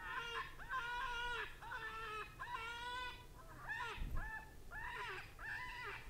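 FoxPro Hammerjack electronic predator caller playing a recorded animal distress call: short, nasal, pitched cries repeated about twice a second, each bending up at the start and down at the end.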